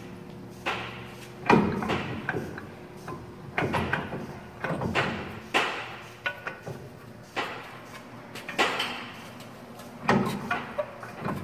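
The heavy front steering knuckle and CV axle of a 2007 Dodge Ram 1500 being wrestled onto the lower ball joint: irregular metal clunks and knocks, a dozen or so, as the parts are shifted and bumped into place.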